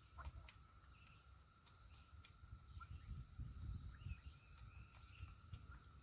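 Near silence: faint rural ambience of insects trilling steadily, with a few short bird chirps and a low rumble.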